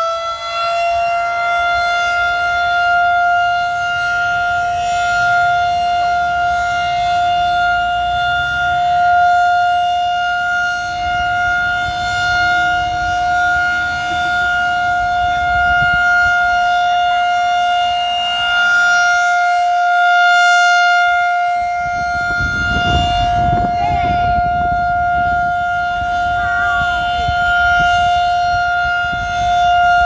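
Federal Signal 2001-SRN rotating tornado siren sounding a steady alert tone, just reaching full pitch at the start. Its loudness swells and fades every few seconds as the horn turns. About two-thirds in, a low rumble joins it.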